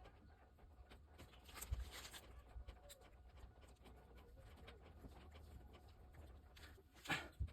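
Faint hand-handling noises on a plastic car door handle: light clicks and rustling as anti-squeak mastic is pressed onto it. There is a louder rustle about two seconds in and another, sharper one near the end.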